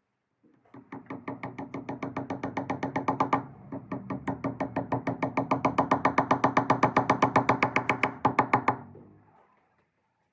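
Background music with a fast, even pulsing beat, about seven pulses a second, that dips briefly about three and a half seconds in and fades out near the end.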